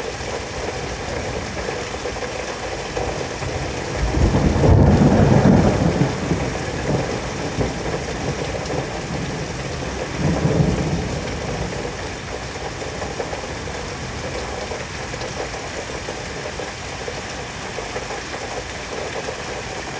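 Steady heavy rain of a severe thunderstorm, with a loud rumble of thunder about four seconds in and a smaller rumble around ten seconds in.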